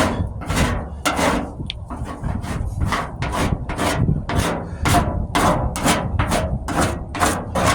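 Surform rasp shaving partly set Bondo body filler on a sheet-metal wheel arch, in repeated scraping strokes about two a second.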